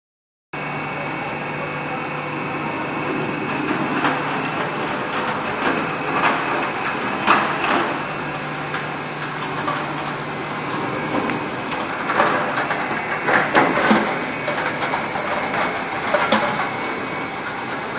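Fibre opening machine for textile recycling running, a steady mechanical hum with a high whine, with irregular louder rushes and clatters as fabric and fibre are fed in and torn open.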